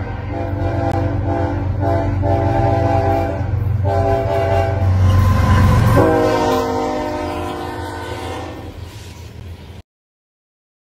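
A diesel locomotive's multi-chime air horn sounds a series of blasts over a low engine rumble. A long final blast drops in pitch about six seconds in, then fades and cuts off suddenly near the end.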